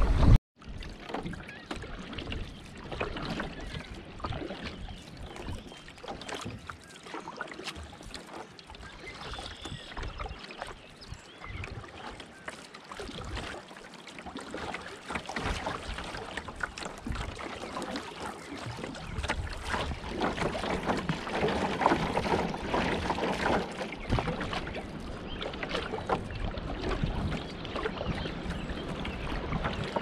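Shallow river water rippling and splashing around a canoe's hull as it moves through a riffle, a continuous gurgling wash that grows louder for a few seconds past the middle.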